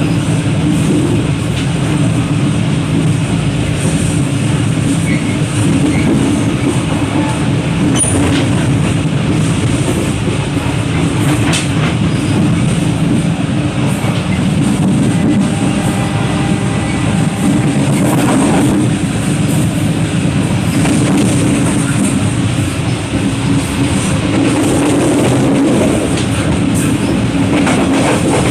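Passenger train running along the track, heard from the open vestibule between carriages: a steady rumble of wheels on rails, with a few sharp clicks and rattles.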